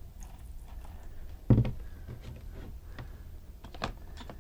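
Light clicks and taps of small plastic parts being handled, with one louder knock about a second and a half in.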